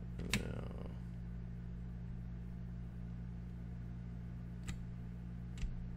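A few isolated computer keyboard keystrokes, a sharp one about a third of a second in and two more near the end, over a steady low hum.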